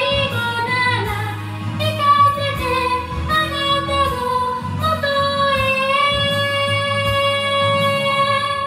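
A woman singing a Japanese song into a handheld microphone over a pop backing track, ending the phrase on one long held note in the second half that stops near the end.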